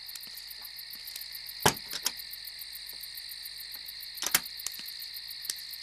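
Steady high chirring of crickets, a night insect chorus, with a few sharp clicks: the loudest about a second and a half in and another just after four seconds.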